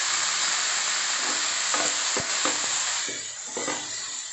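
Fried rice sizzling loudly in a hot nonstick pan as soy sauce goes in, stirred with a wooden spatula in a few scraping strokes. The sizzle dies down about three seconds in.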